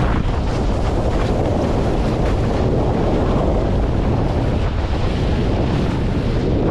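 Heavy wind buffeting the microphone in a wind of about 20 to 25 knots, over water rushing past a windsurf board as it sails through chop.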